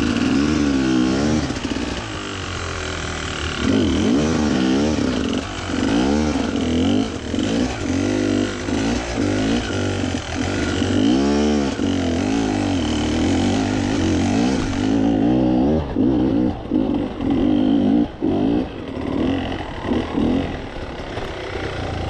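Beta enduro motorcycle engine running hard and revving up and down in repeated throttle sweeps, its pitch rising and falling about once a second, as the bike is ridden up a steep rocky slope.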